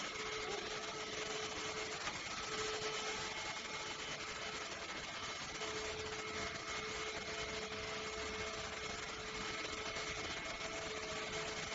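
ENOLUX K7 PRO cordless vacuum cleaner running steadily: a constant rush of air with a faint high whine from the motor.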